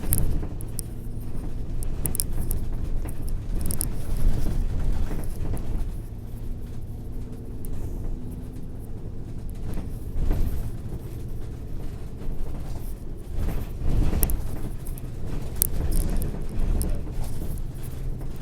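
Low, uneven rumbling noise with scattered sharp clicks and crackles, louder in a few surges.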